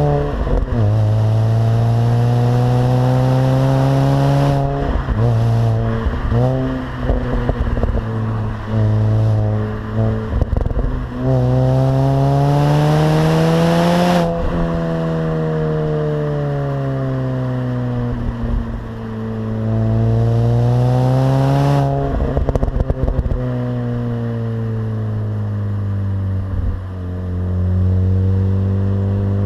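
Mini Cooper S R53's supercharged 1.6-litre four-cylinder engine on its stock exhaust, pitch climbing under acceleration and dropping at each gear change. About halfway through the pitch sinks slowly as the car slows, then climbs and falls again twice more. Clusters of short crackling clicks come in around the shifts in the first third and again about three quarters of the way through.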